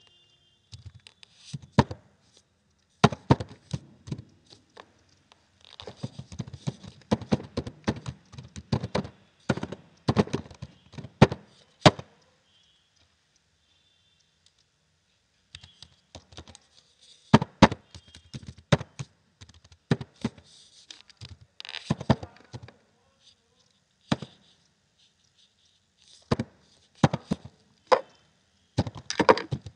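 Typing on a computer keyboard: irregular runs of key clicks with short pauses, one of about three seconds midway.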